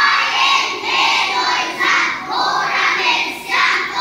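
A large group of children's voices in unison, starting together at once and going in a run of short, evenly paced phrases.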